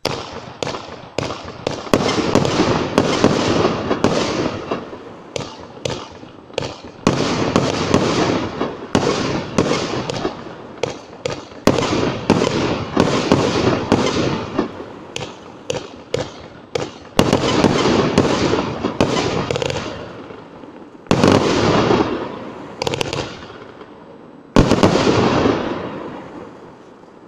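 A 1.2-inch, 25-shot brocade-to-red-strobe firework cake firing its shots one after another, about one a second: each a sharp report followed by a noisy hiss as the burst fades. The shots thin out near the end, with a last loud one shortly before the close.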